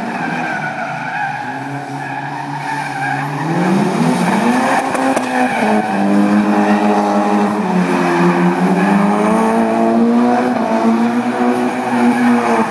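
Mitsubishi Lancer Evolution's turbocharged four-cylinder engine revving hard as the car slides around a wet parking lot. The revs drop at first, climb about four seconds in, and hold high and wavering for several seconds before falling near the end.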